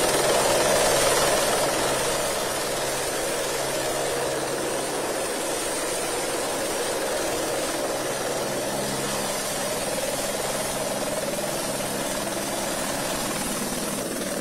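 Light helicopter's turbine and rotor running steadily as it comes in to land: a slightly louder first two seconds, then an even level.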